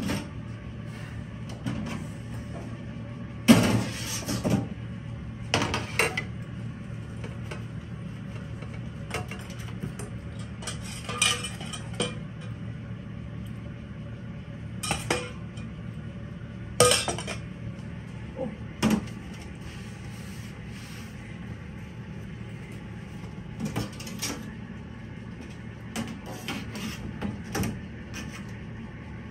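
Metal trays of a steam rice-paper machine clattering and knocking as they are pulled out and slid back in, with a metal ladle scraping and tapping on a tray as batter is spread. A steady low hum runs underneath.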